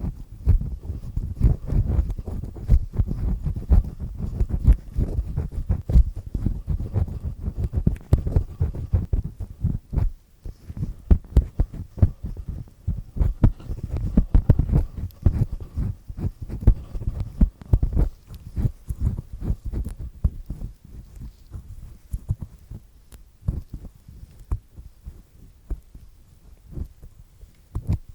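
Earpick with a black triple-disc head scraping and rubbing inside an ear canal, close to the microphone: dense crackling strokes with sharp little clicks. The scraping pauses briefly about ten seconds in and thins out to sparser strokes in the last third.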